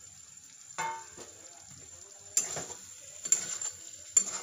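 A spatula stirring and scraping drumstick and potato masala around a steel kadai as it fries, with a light sizzle. After a quiet start come three strokes about a second apart.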